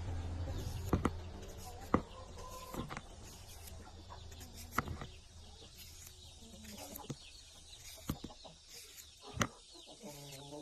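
Chickens clucking now and then, with a few short sharp knocks between the calls.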